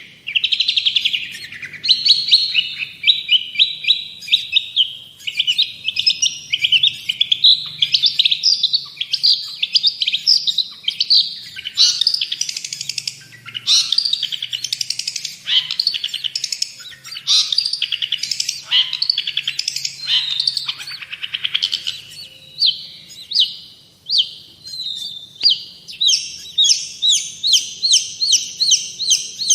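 Long-tailed shrike singing without pause: a fast, varied stream of chattering and whistled notes, and near the end a steady string of evenly repeated notes, about three or four a second.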